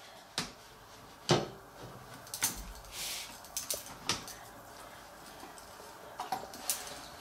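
Light, irregular knocks and clatters of kitchen handling as raw monkfish slices are lifted off a metal baking tray and put into a stainless stockpot of fish soup.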